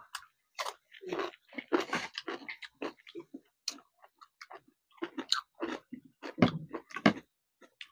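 A person eating dhido with mustard greens and chicken: irregular chewing, biting and mouth clicks, with no talking.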